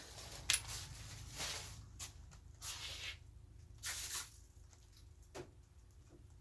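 Short bursts of rustling and handling noise with a few sharp clicks, as objects are picked up and moved about.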